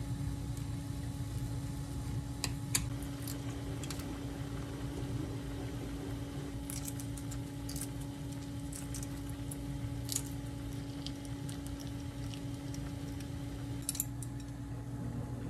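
Shell of a boiled egg crackling as it is cracked and peeled by hand, a cluster of small crisp crackles in the middle, with a few utensil clicks near the start and end, over a steady low hum.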